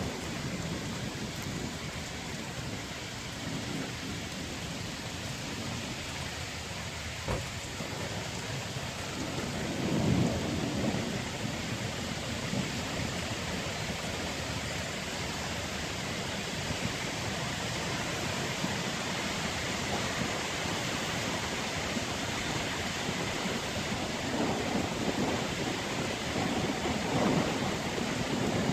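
Heavy rain falling steadily, with low rumbles of thunder swelling about ten seconds in and again near the end, and a single sharp click a little after seven seconds.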